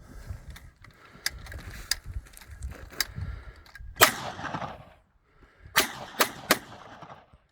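9mm Gatling gun firing single shots at uneven intervals: a few sharper cracks, then the loudest shot about four seconds in, which rings out with a long echo, and a quick run of three shots near the end.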